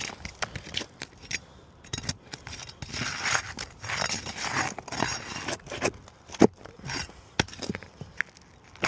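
Worn asphalt shingles being pried up and a roofing nail pulled: scraping and crackling with scattered sharp clicks, one louder knock about six and a half seconds in. The crackle is loose granules coming off the badly weathered shingles.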